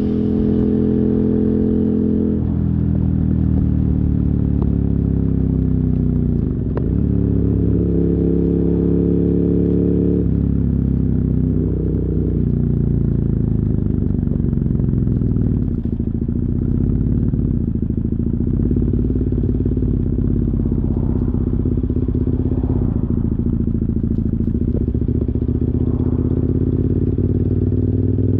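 2007 KTM 990 Super Duke R's 999 cc 75-degree V-twin through dual Yoshimura carbon exhausts, slowing down on the throttle: the engine note falls in pitch, breaks briefly about seven seconds in, holds steady for a few seconds, then drops again to a lower, steady pulse for the rest. Recorded from a phone microphone in the rider's backpack.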